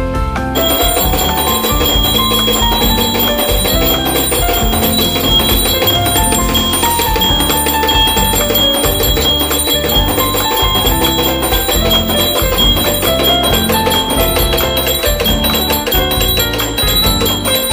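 Background music with a steady beat; the music changes about half a second in.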